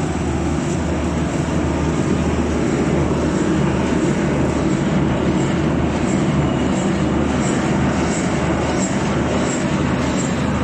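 Screw-press manure dewatering separator running: its motor and screw make a steady mechanical drone with a regular low throb.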